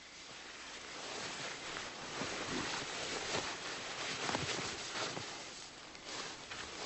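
Steady rushing noise, with a few soft knocks in the middle.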